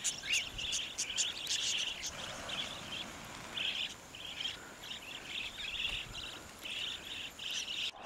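Wild budgerigar flock calling in flight: a continuous stream of many short, high chirps overlapping one another.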